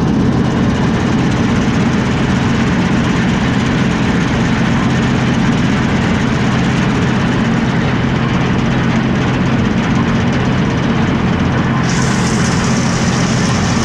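Axial-Flow combine harvester's engine running steadily at a constant speed, with a brighter hiss coming in near the end.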